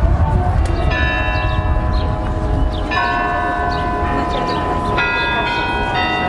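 Bells ringing, a new stroke about every two seconds, each ringing on as it dies away, over a steady low rumble.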